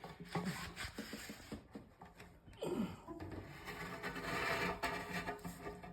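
Steel pizza table scraper being pushed under a rubber bandsaw tire, scraping and rubbing as it prises the tire off the bandsaw wheel, in uneven strokes that grow busier in the second half.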